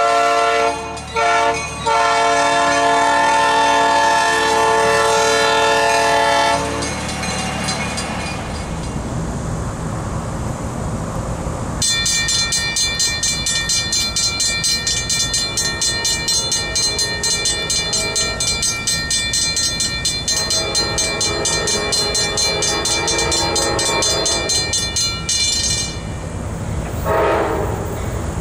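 A train horn sounds steadily with two brief breaks, then gives way to a low train rumble. A mechanical railroad crossing bell then rings in rapid, even strokes with a bright metallic ring before falling away. Two short horn blasts sound near the end.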